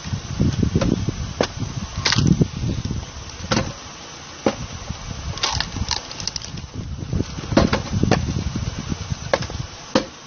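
Belt-driven screw-cone log splitter forcing its spinning threaded cone into logs. The wood groans, cracks and splits open in three bouts, with sharp knocks of split pieces hitting the steel table in between.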